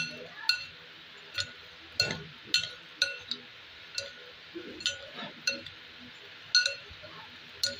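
Two plastic spoons clinking against a stainless-steel bowl as a dry, crispy snack mix is tossed in it: irregular sharp clinks, about two a second, each with a brief metallic ring.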